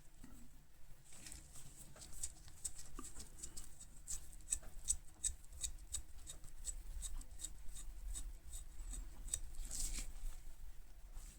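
Faint run of small metal clicks as the knurled worm screw of an adjustable spanner is rolled to run the jaw open, several irregular clicks a second.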